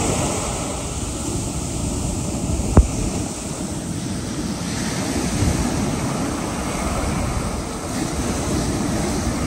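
Ocean surf breaking and washing up a sandy beach in a steady rush, with one sharp click about three seconds in.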